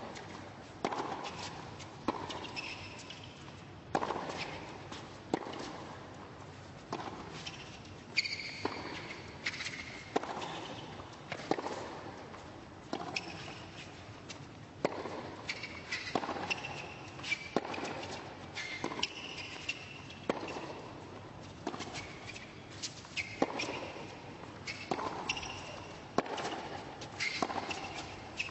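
A long tennis rally on a hard court: ball struck by racquets back and forth about every one and a half seconds, with short shoe squeaks as the players move and turn.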